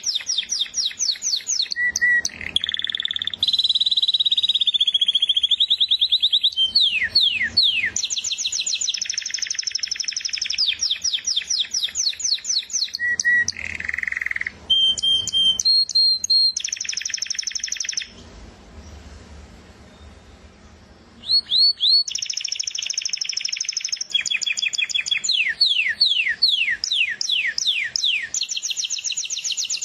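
Canary singing long trills of fast, evenly repeated notes, with a pause of a few seconds past the middle.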